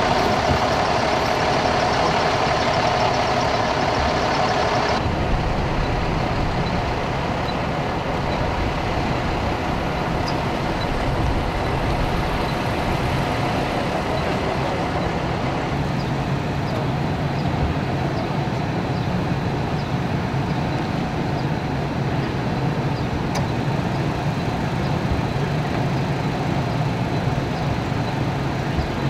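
Large vehicle's engine idling steadily, a heavy truck such as a fire engine. About five seconds in, a higher-pitched part of the noise drops out and the low running sound carries on.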